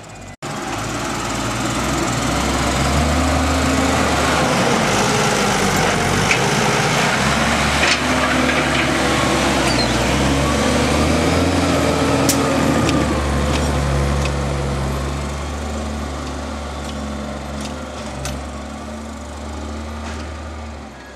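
Farm tractor's diesel engine working under load, a steady mechanical drone whose pitch rises and falls slightly. It starts abruptly just after the start and fades over the last few seconds.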